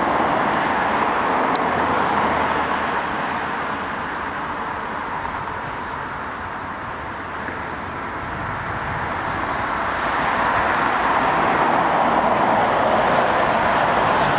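Airbus A320-214 jet engines running on the runway at takeoff, a steady, dense rushing noise. It eases off in the middle and swells again from about ten seconds in as thrust builds.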